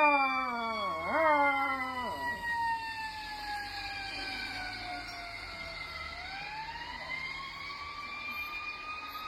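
A dog howls twice along with a fire truck's wailing siren in the first couple of seconds. The siren goes on alone, its pitch slowly falling for about six seconds and then rising again.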